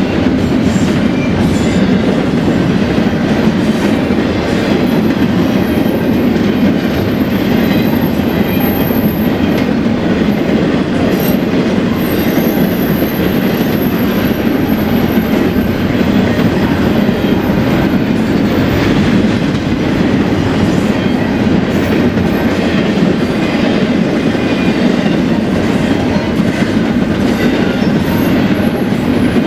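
Freight train cars rolling past at steady speed: a continuous rumble of steel wheels on rail with clickety-clack over the joints. A faint high wheel squeal comes and goes in the middle.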